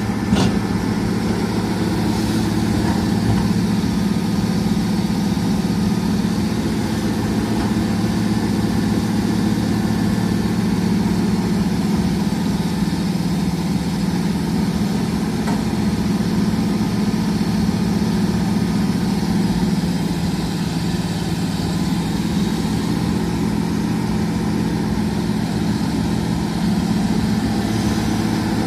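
Excavator's diesel engine running steadily, with a sharp knock just after the start.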